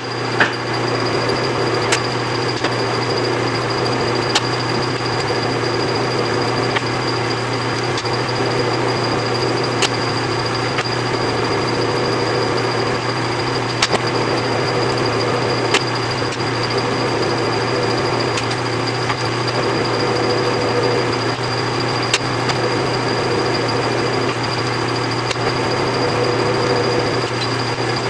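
Large metal lathe running steadily while single-point cutting the third start of a three-start thread: a constant hum with a steady high whine, broken by a sharp tick every few seconds.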